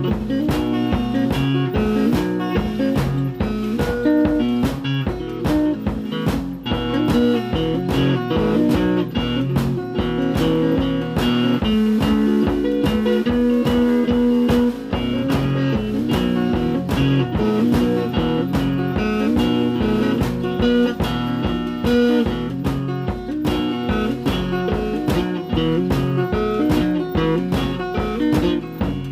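Guitar music with a steady beat.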